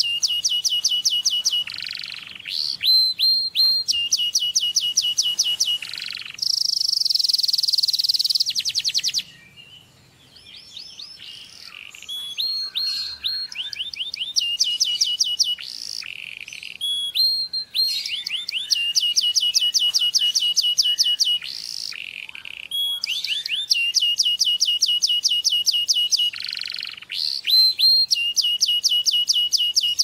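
Domestic canary singing a long song of fast trills: runs of quick repeated notes and rapid rising chirps. There is a harsher rattling phrase about six seconds in and a short lull around ten seconds in.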